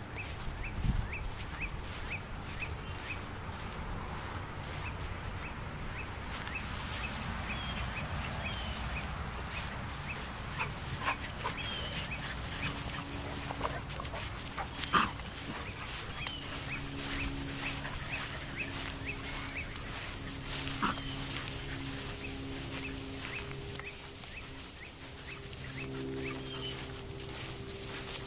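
Labrador puppies and their father dog making small yelps and whines as they run through grass. Underneath is a regular high chirp about three times a second, with a sharp click about halfway through.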